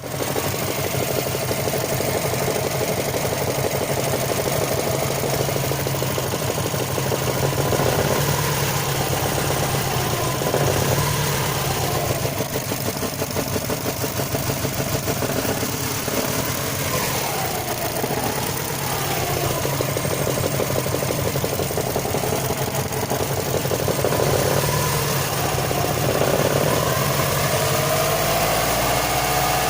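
Subaru Forester SF5's EJ205 flat-four engine running steadily at idle, with a rapid knock coming from inside the engine.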